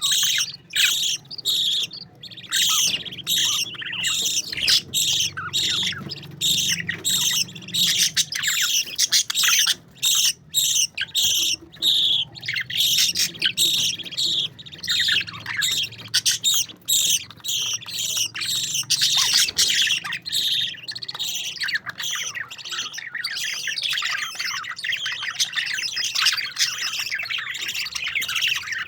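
Several parakeets chattering together, a dense, continuous stream of fast overlapping chirps and squawks.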